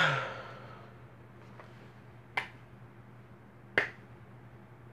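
A thump with a short ringing tail at the very start, then two sharp finger snaps about a second and a half apart, keeping a slow, even beat to count in a song.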